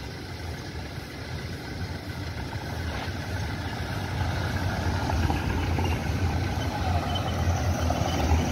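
A convoy of Toyota SUVs, an Innova and Fortuners, drives up and passes close by. The engine and tyre noise grows steadily louder as the vehicles approach.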